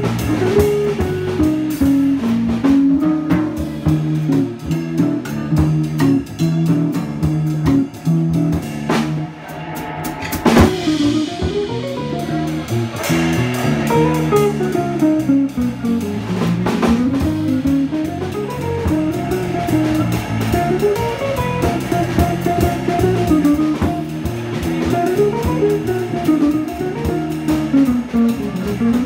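Live jazz trio playing: a drum kit keeps time under guitar lines that climb and fall in quick runs of notes, with a loud cymbal crash about ten seconds in.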